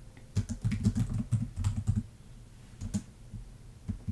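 Typing on a computer keyboard: a quick run of keystrokes lasting about a second and a half, then a few single clicks.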